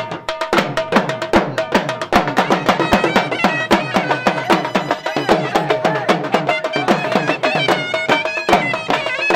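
Dhol drum beaten with sticks in a fast, steady rhythm, its bass strokes dropping in pitch after each hit, under a surna (double-reed shawm) playing a held, wavering melody: Pashtun dhol-surna music for the Khattak dance.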